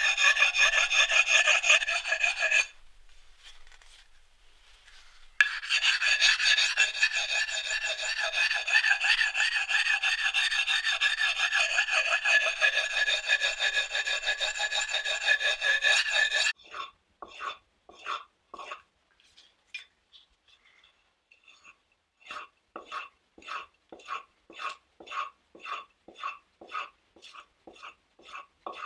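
Axe bit being sharpened by hand, a flat sharpening tool rubbed back and forth along the steel edge, with a metallic ringing rasp. The scrubbing is continuous apart from a pause of a couple of seconds near the start. About halfway through it changes to short separate strokes, about two a second.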